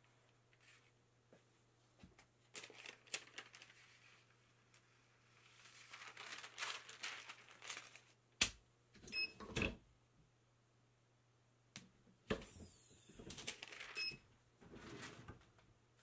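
Sheet of heat-transfer paper rustling as it is handled and peeled off a t-shirt on a heat press, in several short stretches, with a sharp click and knocks about halfway through and another click a few seconds later.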